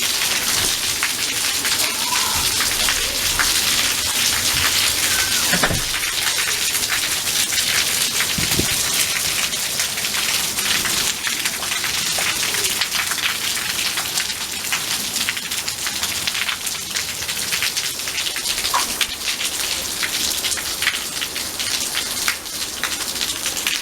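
Heavy rain falling steadily in a thunderstorm, with a dense haze of many small drop hits on nearby surfaces.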